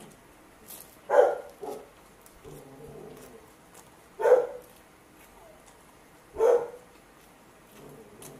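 A dog barking three times, short single barks two to three seconds apart.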